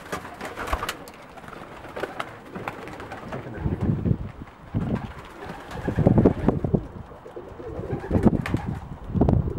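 English tippler pigeons cooing in their loft: several bouts of low, rumbling coos. A few sharp wing claps near the start.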